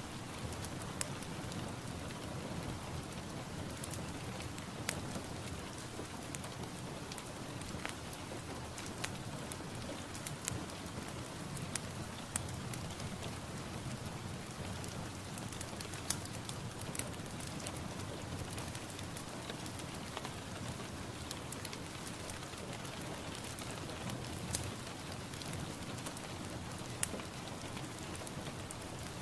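Steady rain falling, an even hiss with scattered sharper drop impacts.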